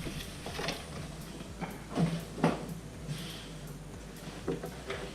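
Handling noise of a nylon backpack: scattered rustles and soft knocks, about half a dozen, the loudest around two seconds in.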